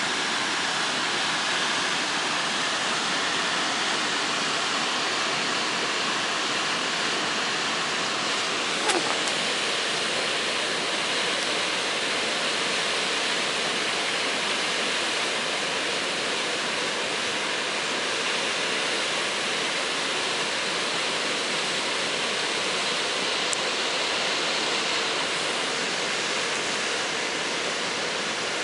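Flooded mountain stream rushing over boulders: a steady, unbroken rush of muddy floodwater. Two faint clicks cut through it, one about nine seconds in and one later.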